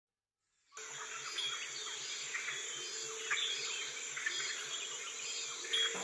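Rainforest insects droning steadily, with scattered short chirps and a faint low pulsing about four times a second, starting just under a second in after a moment of silence.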